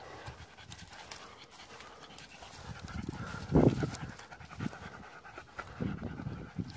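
Dog panting close by, in uneven breaths, with one louder breath about three and a half seconds in.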